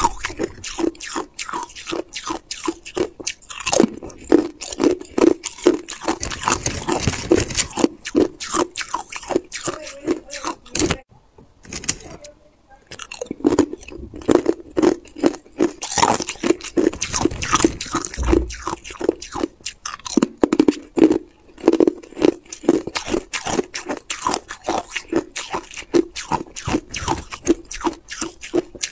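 Hard clear ice being bitten and chewed close to the microphone: rapid, dense crunching and cracking of the ice between the teeth. It breaks off for about two seconds around eleven seconds in, then resumes.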